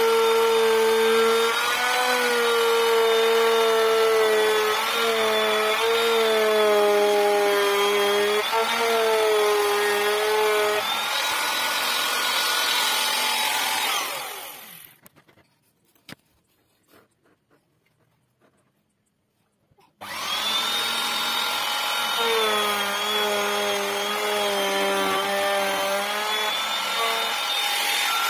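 Handheld electric router running and cutting along a wooden board, its whine dipping and rising in pitch as the bit meets the wood. The motor falls away to silence about fourteen seconds in and comes back at full speed about six seconds later.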